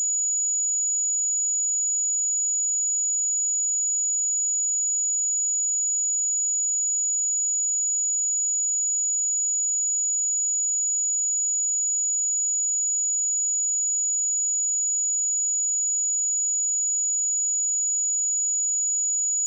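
A pure 6878 Hz sine-wave test tone, a single high-pitched whistle held steady at constant loudness.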